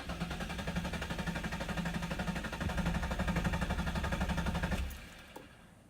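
Nissan 350Z's 3.5-litre V6 cranking on the starter with a fast, even chug, for about five seconds, without catching, then the starter stops. The car won't start; a parts-store scan showed both camshaft position sensors throwing codes.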